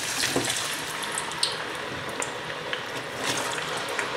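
Raw potato sticks deep-frying in hot oil in a small saucepan: a steady bubbling sizzle with scattered crackles, the froth of moisture boiling off the freshly dropped potatoes.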